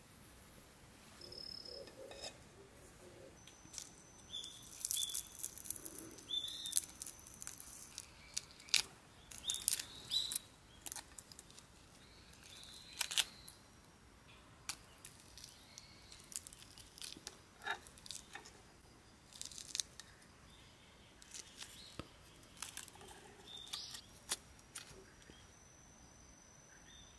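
The shell of a charcoal-grilled prawn being cracked and peeled off by hand, making many irregular crisp snaps and crackles.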